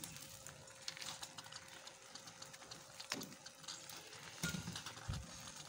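Thick saag simmering in a pot with faint bubbling and crackling, and a few soft knocks as chopped fresh coriander is dropped in.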